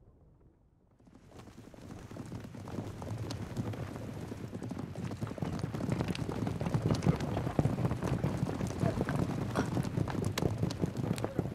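Horses' hooves clattering on the ground, many quick hoofbeats overlapping. They build up from near silence over the first few seconds and keep going.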